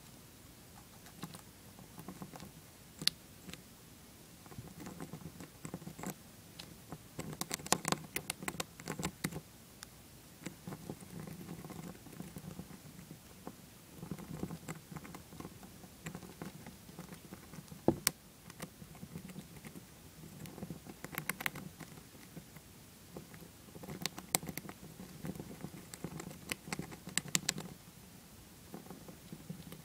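Dwarf hamster gnawing a shelled peanut: faint bursts of small, rapid crunching clicks that come and go, with one sharper click near the middle.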